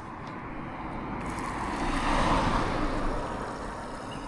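A vehicle passing by on the road, its noise swelling to a peak about two seconds in and then fading away.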